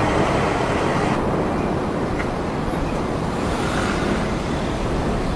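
Steady rushing outdoor noise of wind on the microphone and road traffic, with no distinct events; its hiss thins slightly about a second in.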